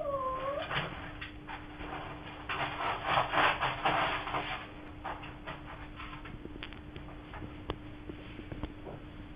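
A cat's short meow right at the start, then irregular scratching and rustling from the cat, densest about two and a half to four and a half seconds in, tailing off into scattered faint scrapes and clicks.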